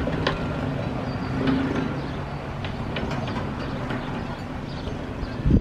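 A steady low engine hum, like a vehicle idling, with a few short sharp clicks scattered through it.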